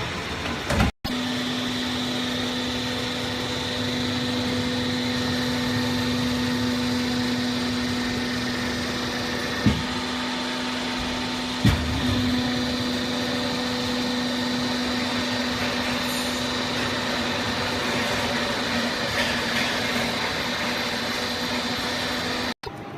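Hydraulic baling press running: a steady motor-and-pump hum at a fixed pitch, with two sharp clicks about two seconds apart near the middle.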